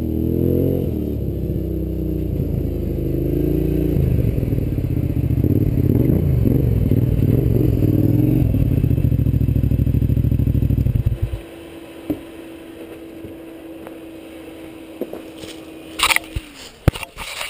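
Kawasaki KFX700 ATV's V-twin engine running loud through an aftermarket Muzzy Super Pro exhaust. It revs up and down from about four seconds in, then is shut off suddenly about eleven seconds in. A faint steady whine carries on afterwards, slides down in pitch and stops, and a few sharp clicks follow near the end.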